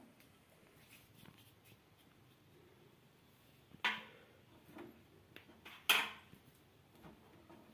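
Kitchen utensils clinking twice, about two seconds apart, with faint handling noises between.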